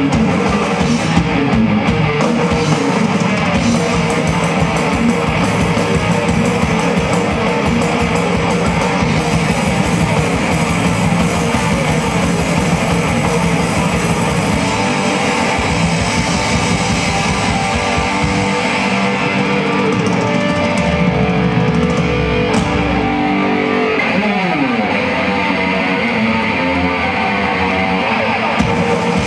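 Live heavy metal band playing loud: distorted electric guitars and bass over fast drumming. About two-thirds of the way through the drums drop out, and near the end a note slides down in pitch.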